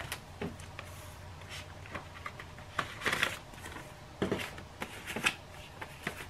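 US paper dollar bills rustling and crinkling as they are pulled from a binder envelope and counted by hand: a scattering of short, crisp rustles, busiest about halfway through.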